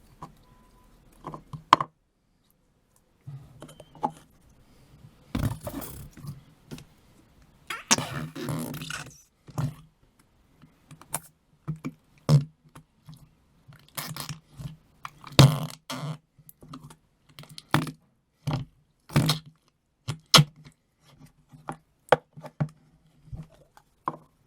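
Noise putty being squeezed and pressed in its pot: irregular wet squelches and pops, with two longer squelching blasts about five and eight seconds in.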